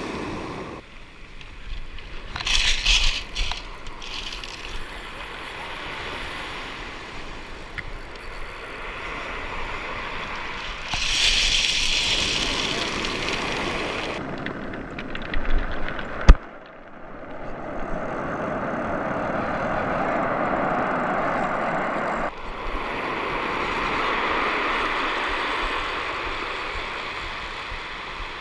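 Surf breaking and washing up a pebble beach in swells, with wind buffeting the microphone. One sharp click, the loudest sound, comes about sixteen seconds in.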